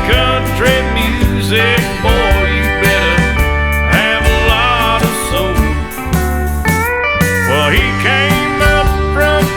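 Country song playing, with guitars over a steady bass and drumbeat.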